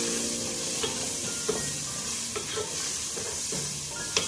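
Onion, tomato and spice masala sizzling in a pan while being stirred and sautéed, with a few light knocks of the stirring utensil against the pan.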